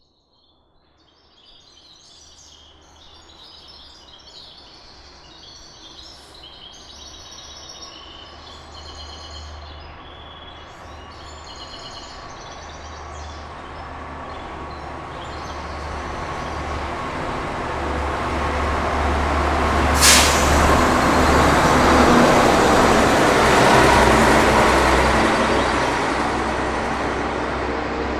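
Diesel bus approaching and passing: its engine drone grows steadily louder, is loudest a little after twenty seconds in, then begins to fade near the end. A short, sharp hiss sounds about twenty seconds in. Birds chirp over the faint engine during the first several seconds.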